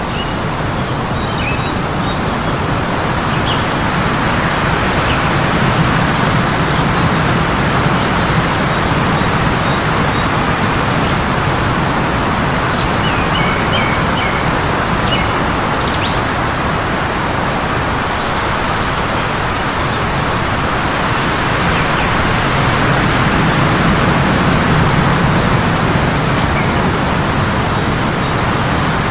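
Strong blizzard wind blowing steadily, swelling into gusts twice, with small birds chirping in short calls throughout.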